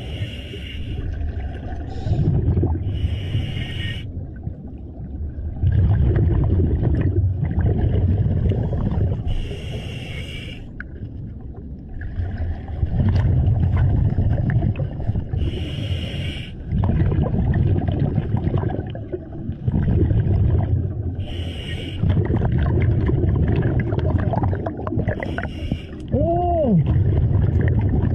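Scuba diver breathing through a regulator underwater: a short hiss on each inhale every few seconds, with a low bubbling rumble on each exhale in between.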